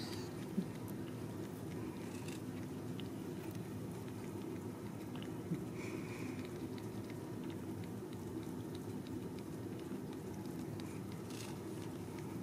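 Steady low purring from a mother Ragdoll cat, with faint wet clicks of newborn kittens suckling at her belly. A brief, thin, higher sound comes about six seconds in.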